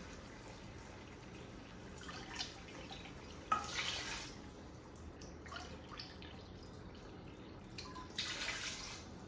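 Water poured from a cup into a pot of browned chicken and masala: two short pours, one about a third of the way in and one near the end, to start the chicken simmering.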